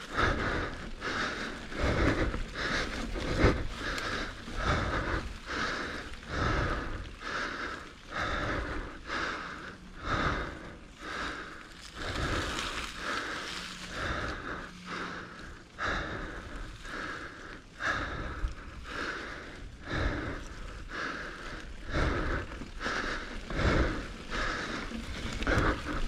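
A mountain biker breathing hard and rhythmically, about one breath a second, close to a chin-mounted camera's microphone while pedalling uphill.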